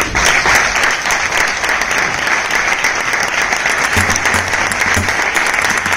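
An audience applauding: dense, steady clapping that breaks out at once and holds a loud, even level.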